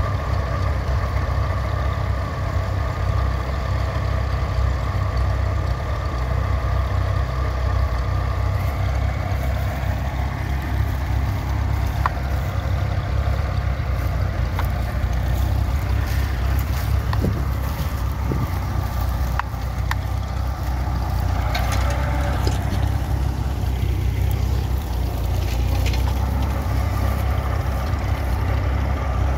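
Tractor engine running with a steady low drone, with a few faint clicks over it.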